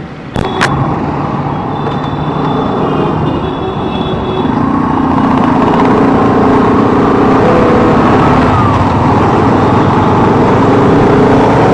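Road traffic noise with a vehicle engine running, getting louder about four to five seconds in, as picked up by an action camera's built-in microphone. There are two sharp clicks just after the start.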